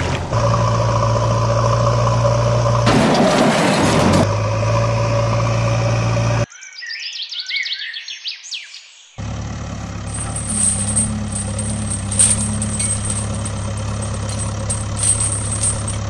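Vehicle engine running steadily, with a rush of hiss-like noise about three seconds in. The engine cuts out for a few seconds, leaving only high chirps, then an engine runs steadily again.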